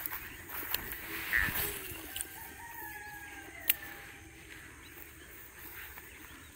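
A rooster crowing once, faint, in a long drawn-out call that falls slightly at the end. A few sharp clicks can be heard alongside it.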